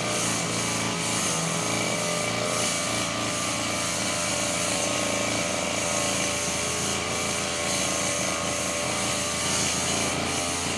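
Petrol brush cutter (grass-cutting machine) engine running steadily, with an even pitch and level.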